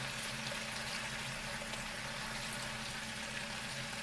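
Honey-soy marinade bubbling and sizzling in a hot frying pan over a gas burner: a steady hiss with fine crackles.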